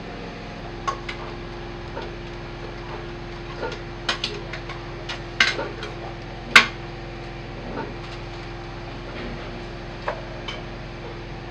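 Metal cooking pots, lids and utensils clinking and knocking now and then, the loudest knock about six and a half seconds in, over a steady hum.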